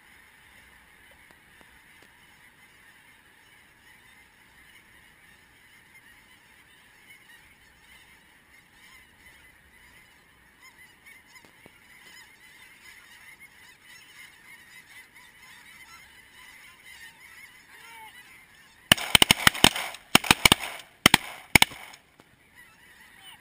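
A huge flock of snow geese calling overhead, many overlapping high honks in a steady din that grows a little louder as the birds come in. Near the end a rapid volley of shotgun shots from several hunters rings out over about three seconds, much louder than the geese.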